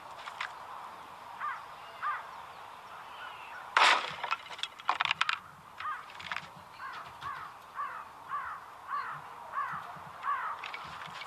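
A single rifle shot about four seconds in, followed by a few quick sharp clicks. Crows caw a couple of times early on and then repeatedly, about two calls a second, through the second half.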